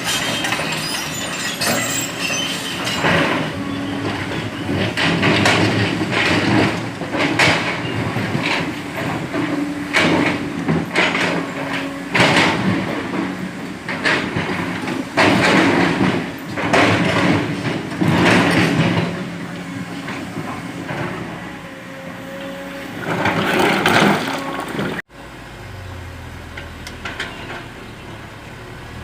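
Heavy diesel engines running while sand is loaded into trucks, with repeated scraping and knocking strokes roughly once a second. Near the end it cuts to a quieter, steady low engine hum.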